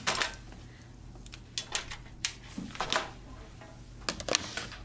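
Scattered light clicks and taps of small plastic nail-art items being picked up and set down while someone rummages for a missing nail tip, about eight sharp knocks at uneven intervals.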